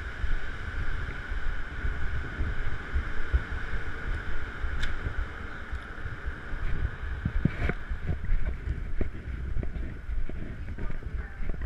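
Low buffeting rumble of wind and handling on the camera microphone, over a steady hum that fades about eight seconds in. A couple of sharp clicks come about five and eight seconds in.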